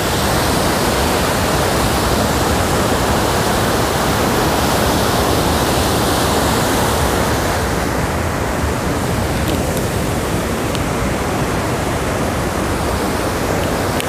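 Waterfall: river water rushing steadily and loudly over and between rocks.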